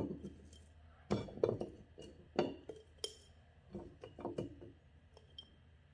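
Sliced onion being packed into a glass bottle, with irregular clinks and knocks against the glass, about seven over several seconds.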